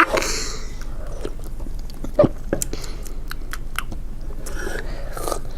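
A child sipping and swallowing fizzy soda, with mouth sounds and scattered small clicks. It opens with a short hiss.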